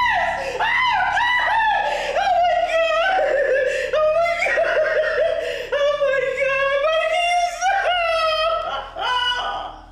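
A woman wailing and screaming in distress: a high, strained voice in long cries that break and rise again, fading just before the end.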